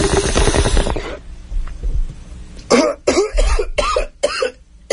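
Bong-hit sound effect: about a second of dense, rattling noise from the water pipe, then after a short pause a fit of repeated harsh coughing.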